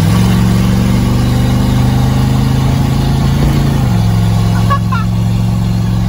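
1973 Mustang's 302 small-block Ford V8, exhaust cut off just past the manifolds, accelerating hard and insanely loud as heard inside the cabin. The engine note climbs steadily for about three and a half seconds, then drops sharply and holds steady.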